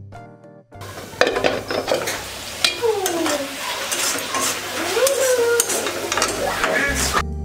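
A metal spatula stirring and scraping onion-tomato masala as it sizzles and fries in a metal kadai, with quick clicks of metal on metal and a couple of sliding squeaks.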